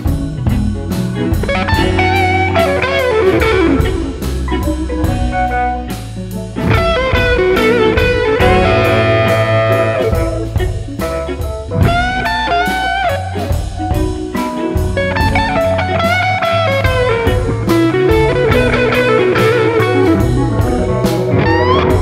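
Blues-rock background music: a lead guitar playing bent notes over bass and drums.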